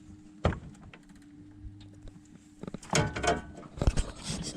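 Handling noise in a fishing boat: a sharp knock, then a burst of clattering and rattling and another hard knock, over a faint steady hum.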